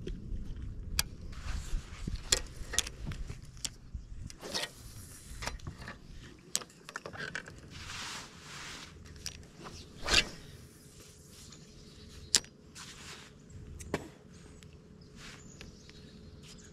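Fishing rod and reel being cast and worked from a bass boat: scattered clicks and knocks with a few short swishing rustles, over a faint steady hum.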